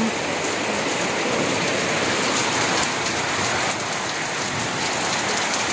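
Heavy rain pouring down, a steady even hiss with no let-up.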